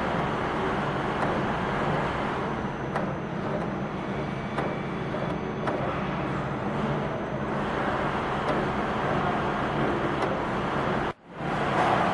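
Automatic radial component insertion machine running: a steady mechanical din with a few faint, irregular clicks from the insertion head as the table moves the PCBs. The sound drops out briefly about eleven seconds in.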